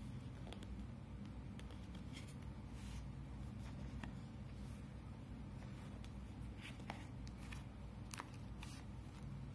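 Faint rustling and light clicks of cardboard and paper as a phone box's white inner tray and paper envelope are handled, with a few sharper taps scattered through, over a steady low hum.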